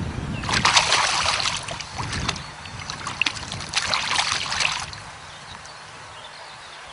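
A hooked small catfish thrashing at the water's surface beside the boat, splashing in two bursts about a second long each, one near the start and one about four seconds in.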